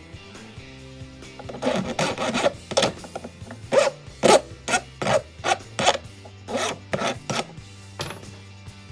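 Coarse hand file rasping across a cast silver ingot on a workbench, in repeated strokes about two a second.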